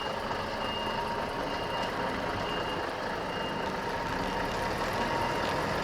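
Level crossing warning alarm sounding in a repeating electronic pattern over the low, steady rumble of heavy diesel engines.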